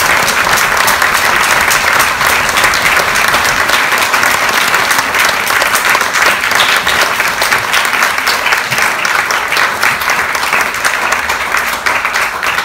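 Audience applauding a speaker at the end of his talk. The dense clapping thins into more separate claps and fades slightly toward the end.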